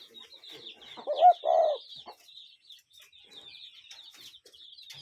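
A common cuckoo gives one two-note 'cuck-oo' call about a second in, the second note slightly lower than the first. A steady high chirping goes on underneath.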